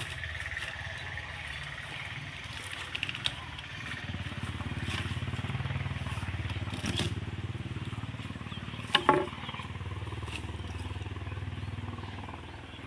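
A small engine running steadily at low speed, a low hum with a few clicks about three seconds in, and one sharp loud knock about nine seconds in as a heavy log is levered over with a bamboo pole.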